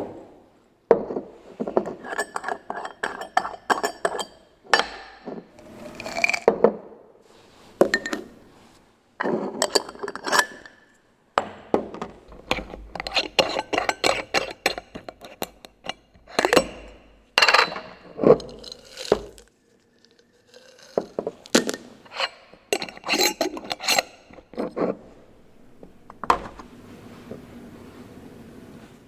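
Glass jars and bottles clinking and knocking as they are handled and set down, in clusters of sharp clinks with short pauses between.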